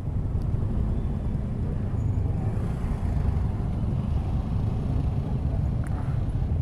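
Motorcycle engines idling in stalled traffic: a steady low rumble.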